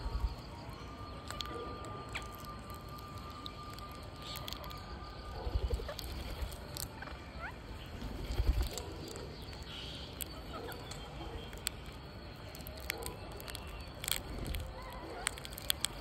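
Indian ringneck parakeets making soft, scattered calls and chirps, among sharp clicks and taps. A few low rumbling thumps come through, the loudest a little past the middle.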